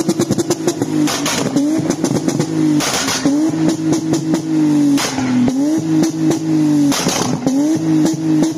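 Lexus IS200's 2.0-litre straight-six engine being blipped repeatedly through its exhaust, its pitch dipping and climbing about once a second. A short harsh burst of noise comes every two seconds or so.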